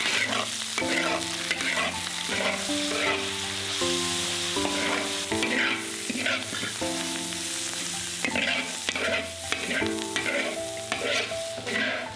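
Stir-frying in a large iron wok: a metal spatula scraping and tossing minced meat with chopped pickled greens, in many short strokes over a steady sizzle. Soft background music with held notes plays underneath.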